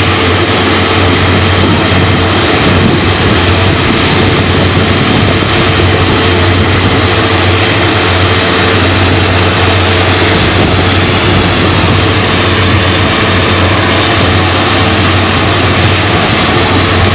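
Short SC-7 Skyvan's twin turboprop engines running steadily on the ground at close range, propellers turning: a loud, even roar with a low drone and a thin high whine.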